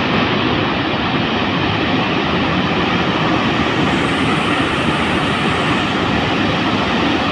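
Unchalli Falls in monsoon flow: a loud, steady rush of falling water.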